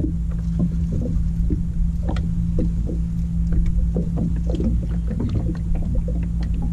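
A small fishing boat's motor running steadily with a low, even hum, while water laps and ticks against the hull.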